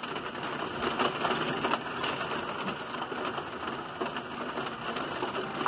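Small hail pelting down on a driveway: a dense, steady patter of countless tiny ticks.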